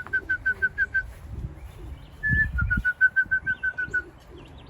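A whistled call to bring racing pigeons in to the loft: twice, one longer note followed by a quick run of short, same-pitched notes, about six a second.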